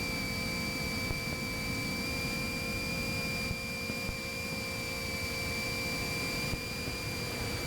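Small FPV drone's electric motors and propellers running at a steady throttle: an even whirring hiss with a constant high whine.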